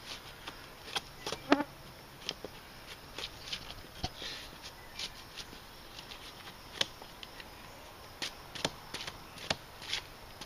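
Small Fiskars hatchet chopping and splitting a chunk of basswood: irregular sharp knocks of the blade biting into the wood, roughly one or two a second.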